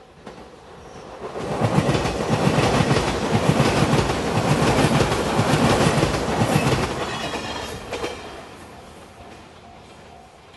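Five-car JR Shikoku Shiokaze limited express electric train passing at speed over a level crossing: a loud rush with wheel clicks over the rail joints that builds about a second in and fades away after about eight seconds. A level crossing alarm's repeating tone shows faintly before the train arrives and again as it fades.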